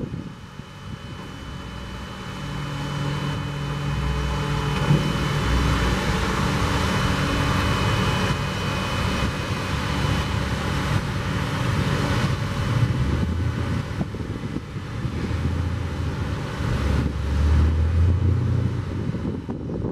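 Hino 338 truck's diesel engine running and powering the hydraulics of a Pac-Mac KB20H knuckle-boom grapple while the boom and bucket are raised. The engine note rises and falls with the load, and a steady high whine sits over it. It grows louder about two seconds in.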